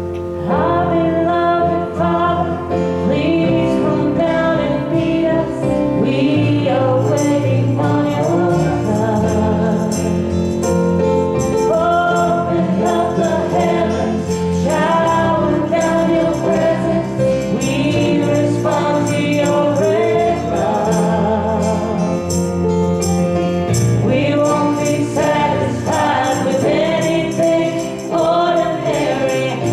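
Women singing a gospel worship song into handheld microphones over a steady musical accompaniment, with percussion joining about seven seconds in.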